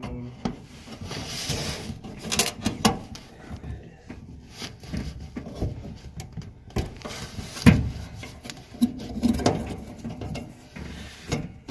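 Irregular clicks, knocks and scraping as hands work on a dryer's belt and pulley, fitting the new pulley. There is one sharper knock a little past the middle.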